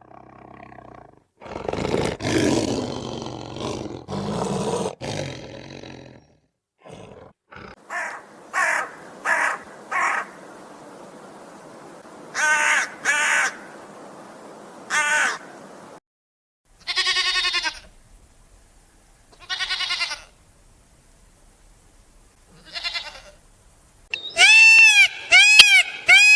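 A string of separate animal calls edited one after another: a low, rough roar lasting several seconds near the start, then a series of short, high calls spaced a second or two apart, and near the end a quick run of loud calls that rise and fall in pitch.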